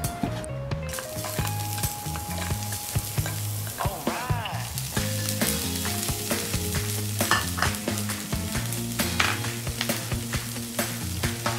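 Soybean sprouts and fish strips sizzling in a hot frying pan as they are stir-fried, with short knocks of utensils against the pan. Soft background music with a steady bass line plays underneath.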